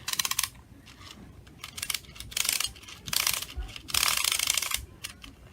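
Clockwork wind-up swimming bath toy being wound: its ratchet clicks rapidly in several short spells as the key is turned, the last spell the longest.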